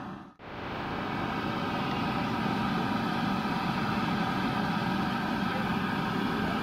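Steady outdoor market-street background noise: an even, engine-like rumble with no distinct events. It drops out for an instant just after the start, then resumes unchanged.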